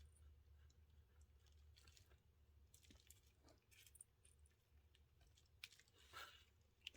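Near silence, with faint scattered clicks and small scrapes of tiny plastic drive-shaft parts being handled and pressed together on a model locomotive's axle.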